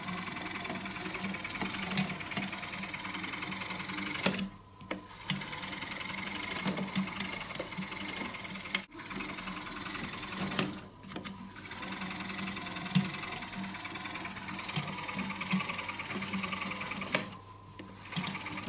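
Vintage Pathé Vox 9.5mm cine projector mechanism running under a hand-crank drive, with a steady rapid mechanical clatter that breaks off briefly three times.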